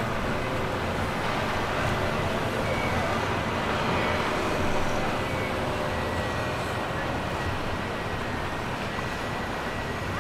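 Boat engines running steadily as boats pass on the river, mixed with the wash of water.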